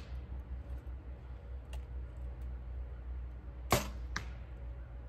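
A compound bow shot about three-quarters of the way in: a sharp crack as the string is released, then a fainter click about half a second later.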